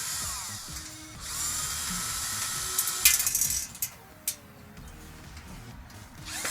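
Cordless drill with a Phillips bit backing screws out of a steel shipping cage: the motor whirs, slows and spins back up about a second in, with a run of sharp metallic clicks and clatter about halfway through.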